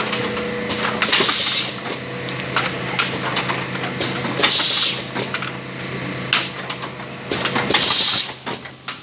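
Automatic perfume filling machine running: a steady motor and conveyor hum with clicks and clatter of bottles in their pucks, and three short hisses of air from its pneumatic parts about three seconds apart.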